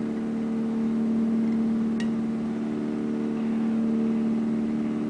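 Electric motor of a can-launcher mechanism running with a steady, even-pitched hum, with a small click about two seconds in.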